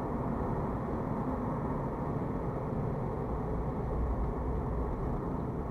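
Steady engine and tyre-on-road noise of a car driving at about 35 mph, heard from inside the cabin.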